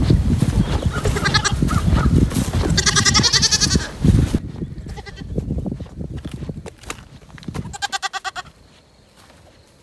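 Goats bleating: three wavering, quavering calls, about one second in, about three seconds in, and near eight seconds. A low rumbling noise lies under the first four seconds and then drops away.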